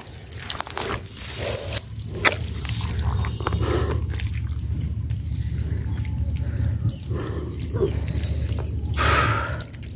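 Small trapped fish flicking and splashing in shallow muddy water: scattered light splashes and drips over a steady low rumble, with a louder splash about nine seconds in.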